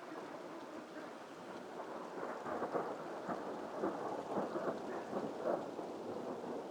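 Rolling thunder, growing louder with a crackling rumble about two seconds in and reverberating.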